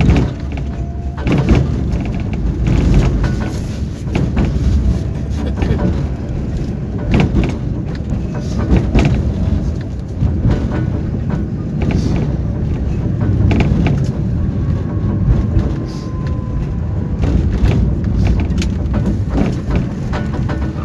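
Tram car running on its rails, heard from inside: a steady low rumble of wheels on track with frequent knocks and rattles, and a faint thin whine in the middle.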